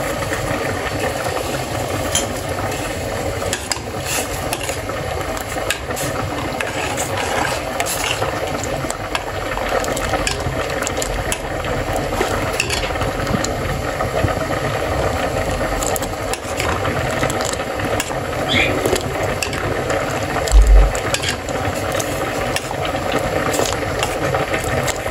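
Pan of green tea kahwa at a rolling boil on the stove: a steady bubbling with many small clicks and rattles, and one dull thump late on.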